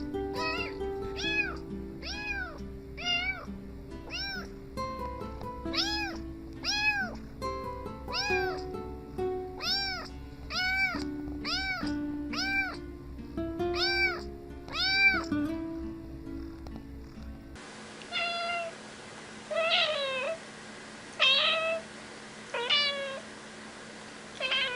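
A domestic cat's meows set to music: meow sounds repeat in a regular rhythm, about one every three-quarters of a second, over a melody and a beat. Then the music stops abruptly, and a cat meows on its own about five times, roughly a second and a half apart.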